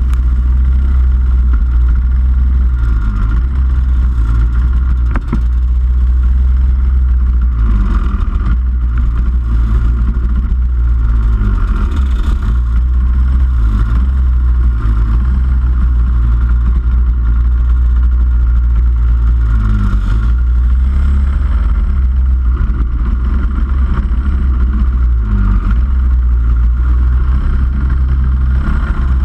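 Rotax 125 cc two-stroke kart engines at racing speed. The revs repeatedly drop and climb again as the karts brake into and accelerate out of corners.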